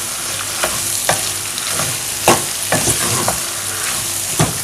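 A spoon stirring through pepper sauce with fried plantain and gizzard in a pot on the heat: a steady sizzle, broken by irregular sharp knocks and scrapes of the spoon against the pot.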